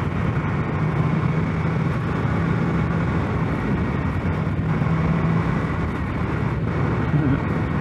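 Sport motorcycle cruising at a steady speed: the engine runs with an even hum under a constant rush of wind and road noise.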